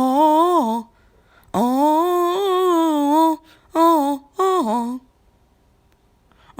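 A person imitating the Mighty Ducks of Anaheim's 2005 goal horn with their throat: a short blast, a long wavering blast, then two short blasts, each dropping in pitch as it ends.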